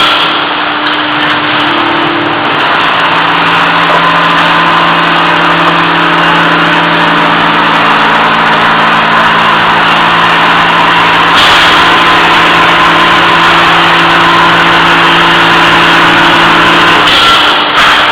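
Welded pipe forming and welding line running: a steady, loud machine hum with several constant tones under a dense rushing noise. The sound shifts slightly a few times.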